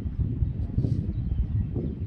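Wind buffeting the microphone: an uneven low rumble that rises and falls, with faint bird chirps above it.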